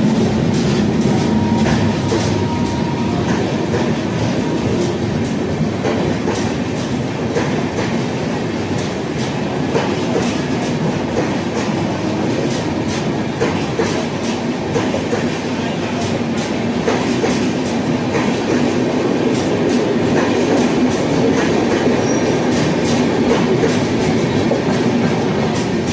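A train running along the track, its wheels clattering over the rail joints in a steady, loud run of clicks and rumble.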